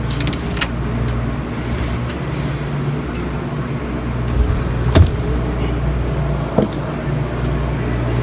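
Vehicle engine idling steadily, with a few sharp knocks over it, the loudest about five seconds in.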